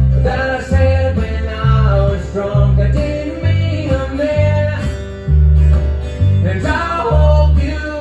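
Live acoustic country string band playing: fiddle, strummed acoustic guitar and upright bass, with singing. The bass plucks a steady line that changes note about twice a second.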